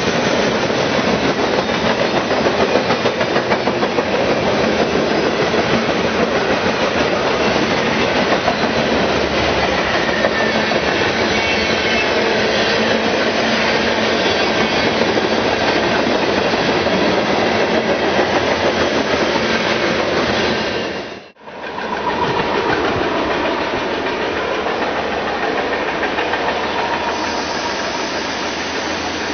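Freight cars rolling past close by, their steel wheels running on the rails in a loud, steady rumble and rattle. Just after two-thirds of the way through, the sound cuts out for an instant and picks up again with another string of freight cars passing, a little quieter.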